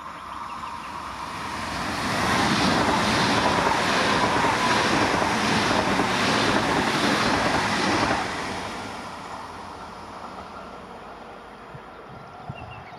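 ICE-T tilting electric high-speed train passing through a station at speed without stopping. A rushing of wheels and air builds, stays loud for about six seconds with a regular beat of about one and a half pulses a second, then dies away.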